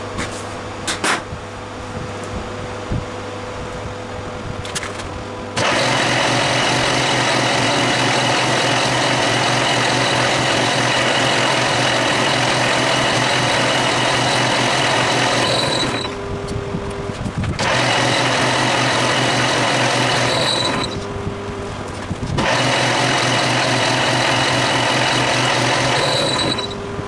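Metal lathe turning a small spigot held in a three-jaw chuck. After a quieter steady hum with a couple of clicks, the loud running comes in three spells with short breaks, about five seconds in, near sixteen seconds and near twenty-two seconds, and each spell ends with a brief high rising whine.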